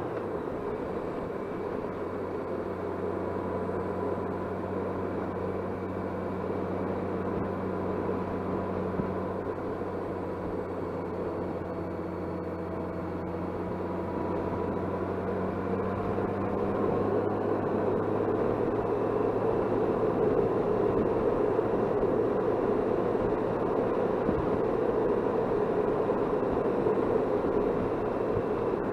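Touring motorcycle riding along at road speed: a steady engine hum under wind and road noise buffeting a helmet-mounted camera. The wind noise grows louder about halfway through.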